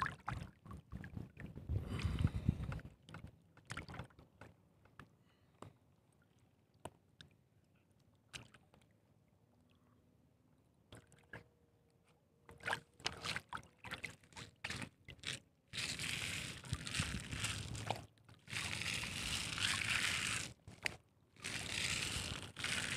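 Water splashing and sloshing close to the microphone, mixed with scattered clicks and scrapes of handling. The splashing comes in three long bursts in the last third.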